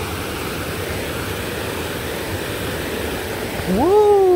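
Rushing stream tumbling over rocks in a steady rush of white water. Near the end a voice gives one drawn-out exclamation that rises and then falls in pitch.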